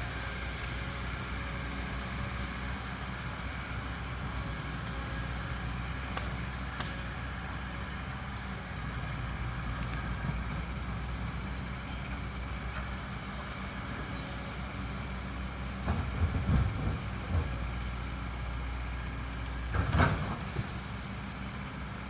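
Kobelco hydraulic excavator's diesel engine running steadily under work. Several heavy knocks come about sixteen to seventeen seconds in, and a louder single thump near twenty seconds.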